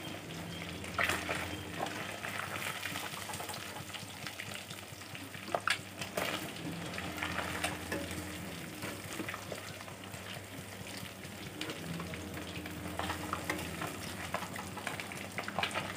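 Fish pieces frying in hot oil in an iron kadhai: a steady sizzle with scattered crackles, and now and then the sharp scrape and tap of a metal spatula against the pan as the fried pieces are lifted out.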